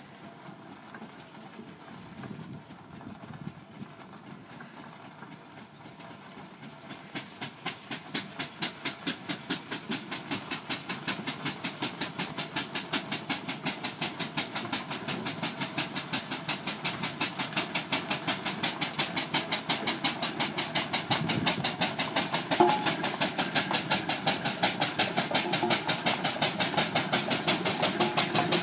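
Burrell steam traction engine working hard under load as it pushes a road roller, its chimney exhaust beating in a quick, even chuff that grows steadily louder as it approaches. One sharper knock stands out about three-quarters of the way through.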